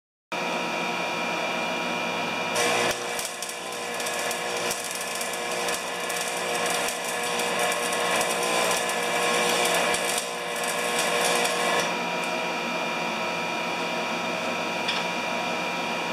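Electric arc welding on steel snowblower skid shoes: the arc crackles steadily for about nine seconds, starting a couple of seconds in, over a constant electrical hum.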